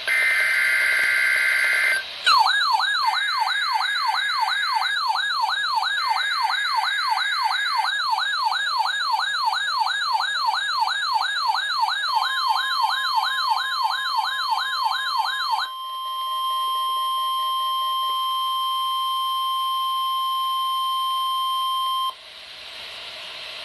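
NOAA Weather Radio alert tones: a harsh, buzzing burst of digital SAME header data, then a warbling siren-like alarm sweeping up and down several times a second. About twelve seconds in, the steady single-pitch warning alarm tone joins it. The alarm tone outlasts the warble by several seconds, then cuts off abruptly into radio hiss.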